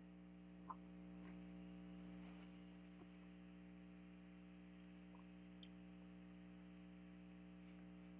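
Near silence: a steady electrical hum with a few faint clicks, the sharpest just under a second in.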